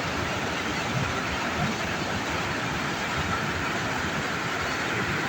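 Water rushing out of the Kalawewa reservoir through its spill gates: a steady, even rush of water.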